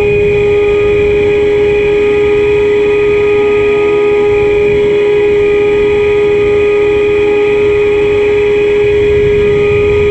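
RC foam delta-wing plane's motor and propeller running at steady throttle, a constant high whine that holds one pitch, with wind buffeting the microphone underneath.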